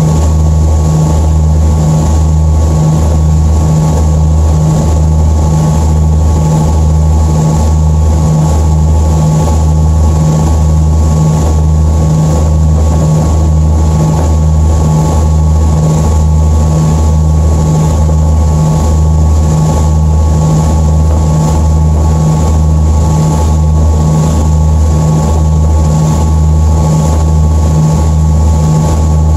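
Fast passenger ferry's engines running at speed: a loud, deep drone that pulses evenly about one and a half times a second, over the rush of the churning wake.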